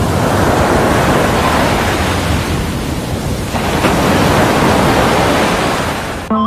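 Loud, even rushing noise of ocean surf. It cuts off suddenly just before the end, when a melodic music track starts.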